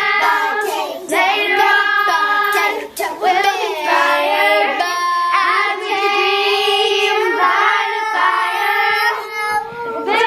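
A child's voice singing a melody over a steady held note of musical accompaniment.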